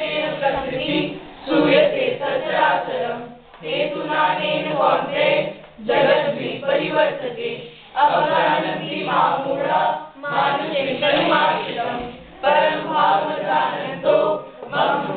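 A group of voices chanting together in unison, in short phrases of about two seconds with brief pauses between them, typical of Sanskrit recitation.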